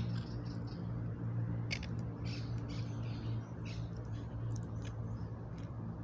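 Scattered short high chirps and pecking clicks from a flock of feral pigeons and monk parakeets feeding at close range, over a steady low hum.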